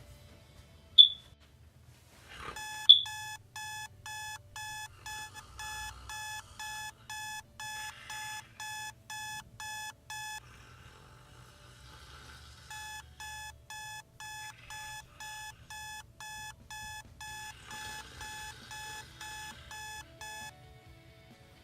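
Electronic alarm clock beeping at about two beeps a second, in two long runs with a pause of about two seconds between them. Two short, loud, high chirps come just before the beeping starts and are the loudest sounds.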